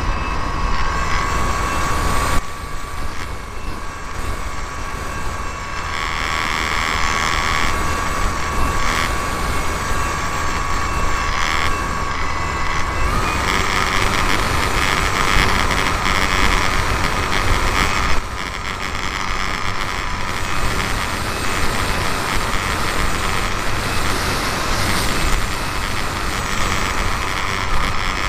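RC model Cessna 182's motor and propeller running steadily in flight, a steady whine that steps up in pitch about halfway through, with wind rushing over the wing-mounted camera's microphone.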